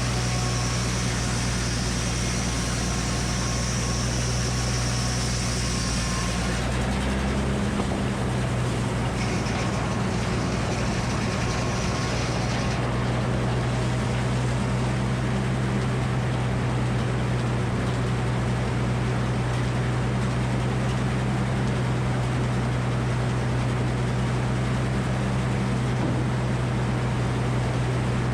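Engine powering a Frick circular sawmill, running steadily under a constant drone, its sound shifting slightly about seven seconds in.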